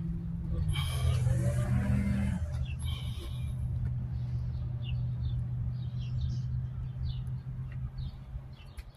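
A small engine drones steadily at one low pitch, shifting slightly early on, with a brief rush of noise about a second in. Faint bird chirps sound through the middle.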